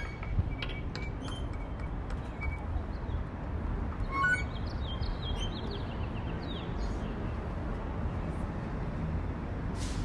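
African grey parrot giving scattered short chirps, clicks and whistles, with a brief cluster of higher whistles about four seconds in, over a steady low rumble.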